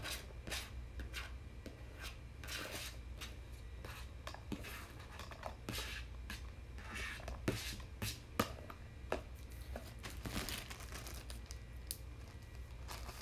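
Knife chopping a yellow onion on a thin flexible plastic cutting mat in irregular strokes, then scraping the chopped onion off the mat into a plastic tub. Near the end a zip-top plastic bag crinkles as it is handled.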